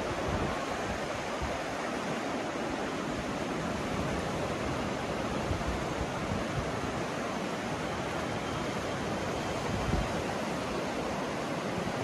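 The Ganges, a Himalayan mountain river, flowing fast over rocks and shallow riffles: a steady, even rush of water.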